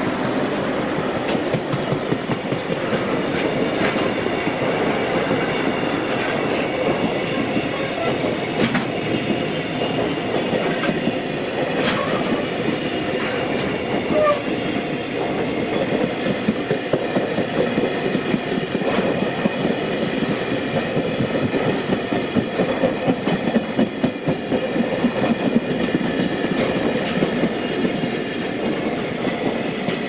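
A JR Freight container train's flatcars rolling past close by: a steady rumble of steel wheels on rail, with a rhythmic clickety-clack as the wheelsets cross the rail joints.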